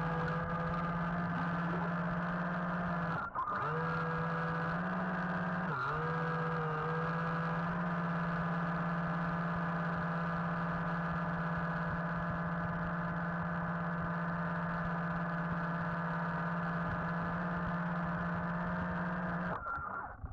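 RC submarine's electric drive motor whining steadily, heard underwater through the camera housing. The pitch dips and shifts briefly about three and six seconds in, and the sound cuts off near the end.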